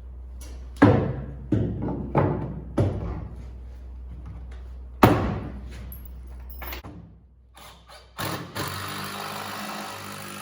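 Wooden bed boards being knocked into place in a pickup bed: about five sharp knocks, then a steady buzzing noise for the last two seconds.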